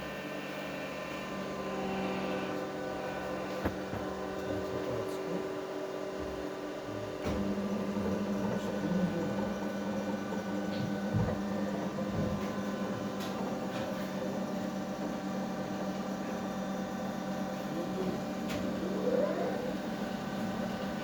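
3B12 cylindrical grinding machine's electric motors running with a steady hum. About seven seconds in a further drive comes on and the hum grows louder, with a few clicks along the way.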